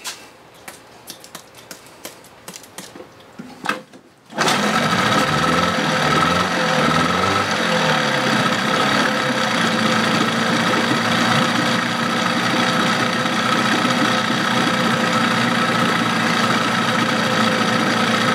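Evinrude 15 HP two-stroke outboard motor starting about four seconds in, after a few handling clicks, then running loud and steady. Its speed swings up and down briefly as the tiller throttle is worked, then holds even.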